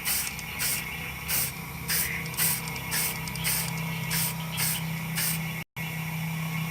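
Aerosol spray-paint can sprayed in short hissing puffs, about two a second, over a steady low hum. The puffs stop after a brief break near the end, leaving only the hum.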